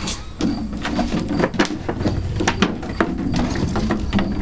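A Bernese Mountain Dog knocking a clear plastic jug and a plastic ball toy about on a wooden deck: irregular plastic clatters, knocks and scrapes.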